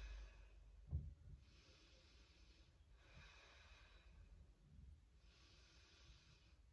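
Faint, slow breathing of a person holding a standing forward fold, several long breaths in and out at a few seconds each. A short, soft thump about a second in.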